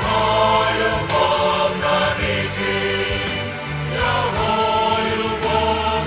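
Mixed choir of men and women singing a hymn in Ukrainian in full chords over an instrumental accompaniment.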